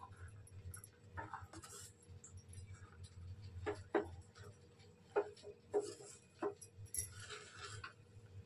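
Spatula scraping and knocking against a steel kadhai while stirring rice flour into a thick semolina-and-water mixture. Irregular faint scrapes with a few sharper knocks.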